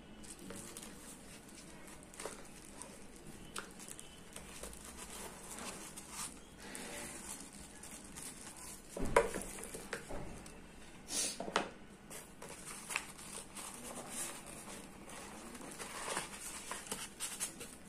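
Packaging being handled during an unboxing: irregular crinkling and rustling with scattered clicks and a few louder knocks, the loudest about nine seconds in.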